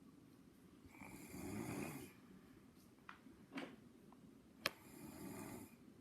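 Snoring in sleep: one long snore about a second in and a fainter one near the end, with a few sharp clicks in between.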